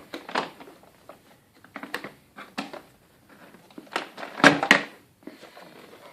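Hard plastic clicks and knocks from handling the dirty-water tank and its latch on a Hoover PowerScrub carpet cleaner. A few scattered taps, then a louder pair of snaps about four and a half seconds in.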